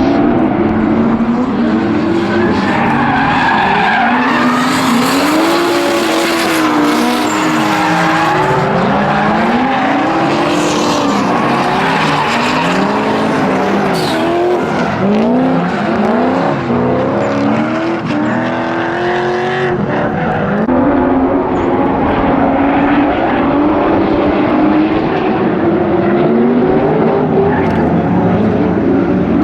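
Drift cars' engines revving up and down through a run, more than one engine at once, with tyre squeal and skidding noise that is strongest in the middle.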